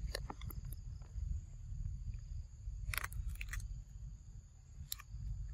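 A long-tailed macaque biting into a green mango, with a few short crunches about three seconds in. Under them are a steady high insect drone and a low wind rumble on the microphone.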